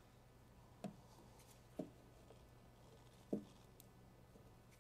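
Quiet room tone with a low steady hum, broken by three soft taps as fingers and a squeegee work tint film onto a plastic taillight lens.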